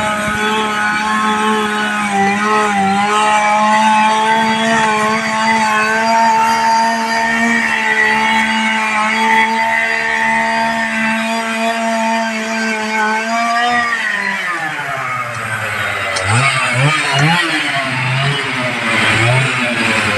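Chainsaw running at full throttle, cutting through the trunk of a fallen tree. About fourteen seconds in the throttle is released and the pitch drops to idle, then rises and falls in short blips of the throttle.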